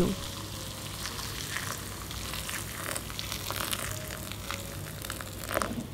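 Boiling-hot water poured in a steady stream onto dry instant noodles in a bowl, a steady splashing hiss with small crackles as the bowl fills and the noodles soak.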